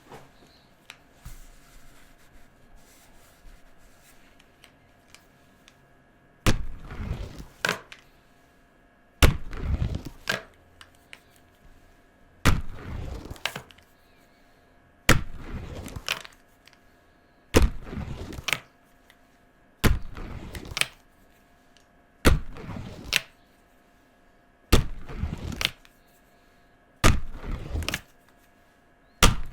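Felt-tip marker work on paper laid on a table. Faint taps for the first six seconds, then a regular series of short scratchy bursts about every two and a half seconds, each starting and ending with a sharp tap.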